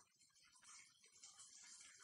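Faint bubbling of tamarind gravy simmering in a clay pot over a gas burner, with soft irregular pops.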